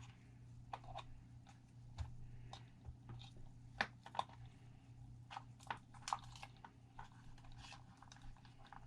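Faint, irregular small clicks and crinkles of hands wrapping and handling wires on an RC truck chassis, over a steady low hum.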